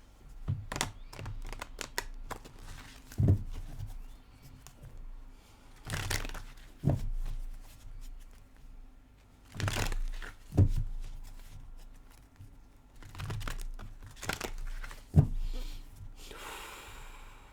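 Tarot cards being handled: irregular paper rustles and light taps on the table, with a longer rustle of the deck near the end.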